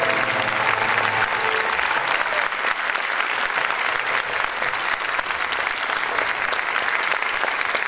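Concert audience applauding steadily, a dense clatter of many hands clapping. In the first second the ensemble's last held note fades out under the applause.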